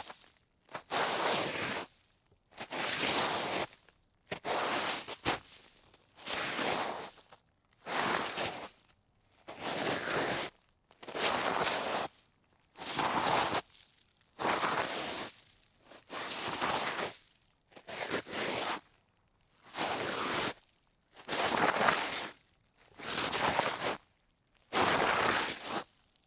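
A series of separate slides over snow, each a grainy, rushing swish lasting about a second, repeating about fifteen times with short pauses between.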